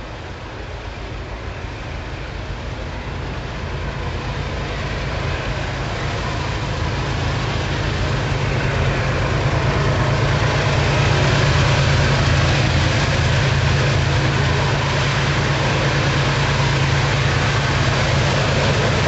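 Diesel locomotive hauling a train towards the listener, its engine drone and rail noise growing steadily louder over the first ten seconds or so, then holding loud as it draws close.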